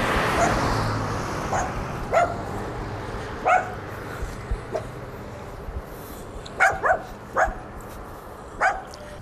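A dog barking in short single barks, about eight in all, several in quick succession near the end, over a soft rushing noise in the first couple of seconds.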